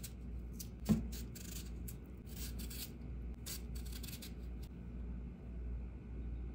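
Vegetable peeler shaving ribbons off a cucumber: a run of short rasping strokes that stop about three quarters of the way through. There is a single sharp knock about a second in.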